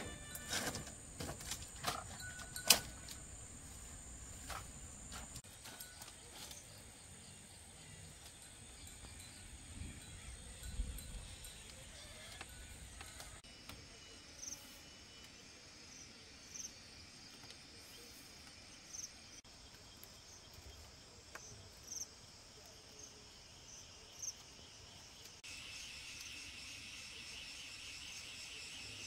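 Insects chirping steadily in high-pitched tones, with a short call repeating about every two seconds through the middle and a denser, pulsing trill setting in near the end. A few sharp knocks come in the first few seconds.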